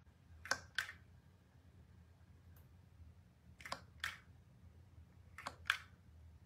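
Plastic reacher-grabber tool clicking as its jaws are squeezed and released: three pairs of short sharp clicks a few seconds apart, over a faint low hum.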